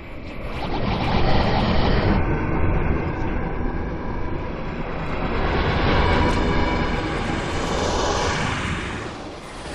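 Designed sci-fi 'time flutter' swoosh sound effect: a fluttering, wobbling whoosh that swells and ebbs in several waves, dipping briefly near the end before a new swell begins.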